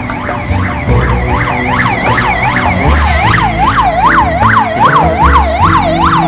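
Emergency vehicle siren sounding a fast rising-and-falling yelp, about two and a half cycles a second, growing louder about two seconds in.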